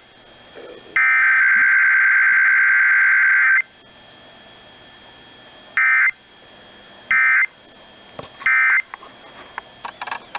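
Emergency Alert System SAME digital data tones. A header burst lasts about two and a half seconds, then three short end-of-message bursts follow, each about a second apart, marking the end of the alert.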